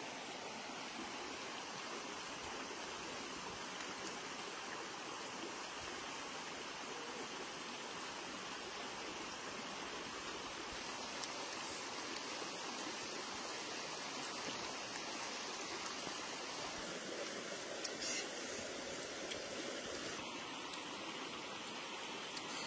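A steady rushing noise like running water, with one short sharp sound about 18 seconds in.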